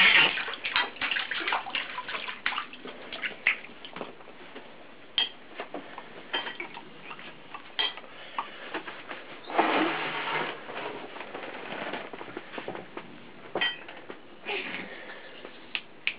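A baby splashing and slapping the water in a small inflatable paddling pool, a string of irregular splashes, loudest right at the start and in a longer flurry about ten seconds in.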